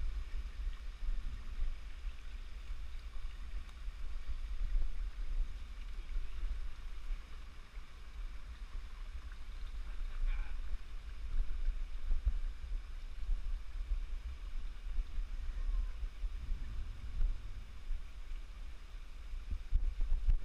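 Wind buffeting the action camera's microphone, a gusty low rumble, over a steady hiss of running water from the stream and waterfall.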